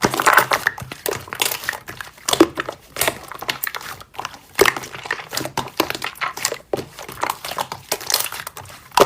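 Slime being squeezed and worked by hand, giving an irregular run of crackling clicks and pops.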